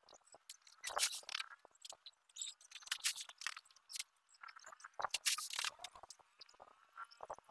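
Paddy (unhusked rice) rushing out of a tipped sack onto a concrete roof, with the rustle and scrape of the sacks being handled. It comes in irregular bursts, strongest a second in, about three seconds in and around five seconds in.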